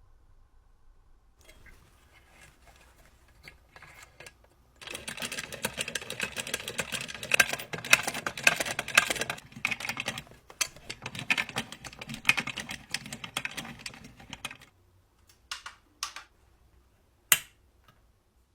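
Restored 1950s mini sewing machine running, a rapid mechanical ticking in two runs of several seconds with a brief break between them. Then come a few single clicks and one sharp click near the end.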